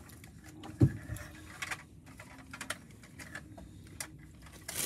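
A paper bakery bag rustling and crinkling in the hand while someone takes a bite and chews, with scattered small clicks, one dull bump about a second in, and louder crinkling near the end.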